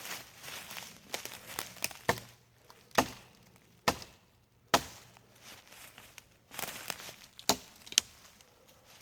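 Six sharp knocks, like wood being struck, spaced about a second apart in two groups, with rustling and crunching in between.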